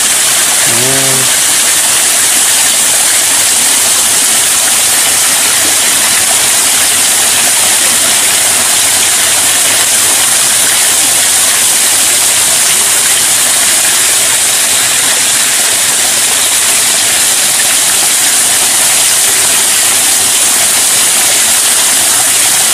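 Small waterfall pouring over a rock ledge onto the rocks below: a steady, loud rushing hiss. A brief vocal sound about a second in.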